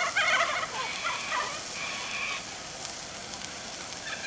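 Laughing kookaburras calling in a chorus of rapid, chattering notes, loudest in the first half-second and fading out after about two and a half seconds.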